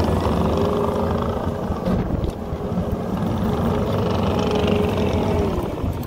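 Case TV450 compact track loader's diesel engine running steadily as the machine pushes and grades dirt with its bucket down.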